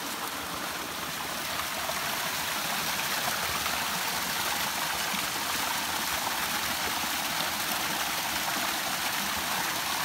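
Spring water pouring steadily from a wooden spout and splashing into a shallow pool, a continuous hiss of running water that grows a little louder about a second and a half in.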